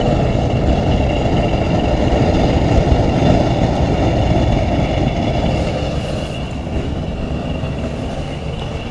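Heatstar 60,000 BTU propane heater freshly lit and running steadily: a loud, noisy rush of burning propane with faint high steady tones above it.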